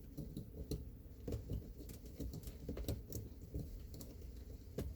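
Scattered small clicks and scratches of fingers working at a dash cam's plastic memory-card slot, trying to pry the card out.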